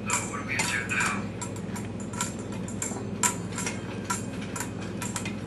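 Irregular light clinks and ticks, several a second, like small hard objects knocking on metal, over a steady low hum.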